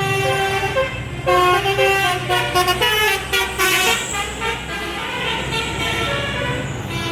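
Bus's Basuri telolet musical horn playing a quick stepped tune of bright notes over the steady low hum of the bus engine. The notes blur and thin out after about four seconds.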